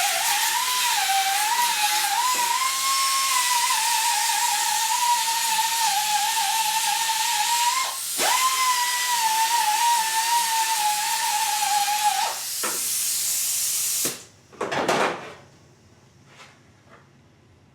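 A power grinder running on sheet metal, a steady hiss with a whining tone that wavers as it is pressed into the work. It lets off briefly about eight seconds in and spins back up, then stops abruptly near the end, followed by one short burst.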